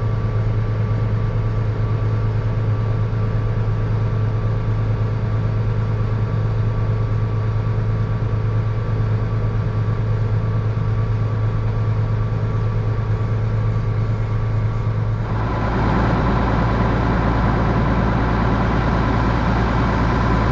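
Combine harvester running steadily, heard from inside the cab: a low engine hum with a constant whine above it. About fifteen seconds in, a louder rushing noise joins and the sound grows fuller.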